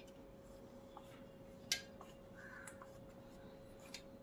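A wire whisk clicking against a steel bowl as it stirs gram flour and ghee, a few sharp metal clicks with the loudest a little under two seconds in, over a faint steady hum.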